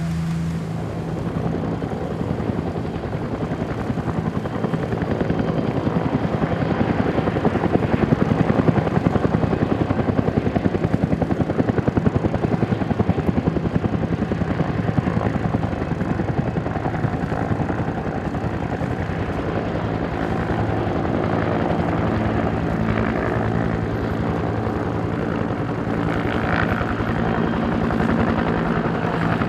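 Helicopter flying over, its rotor beating in a rapid, steady pulse over a steady low engine drone; it grows louder about eight seconds in and eases off after about twelve.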